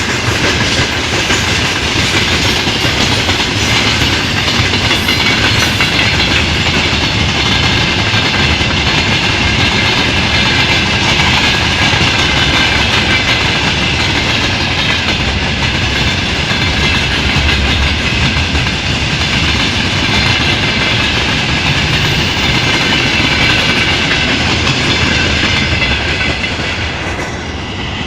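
Freight train rolling past, its wheels clattering over the rail joints in a steady, loud run of noise that eases off near the end.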